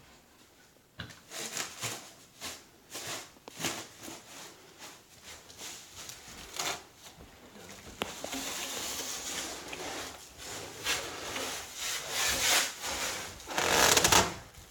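Repeated scraping and rubbing strokes as a pinball machine cabinet is shifted and handled. The strokes grow denser in the second half, with the loudest scrape just before the end.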